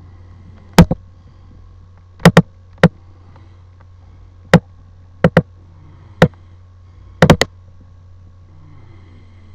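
A dozen or so sharp clicks or taps at irregular intervals, several in quick pairs and a quick triple near the end, over a steady low electrical hum.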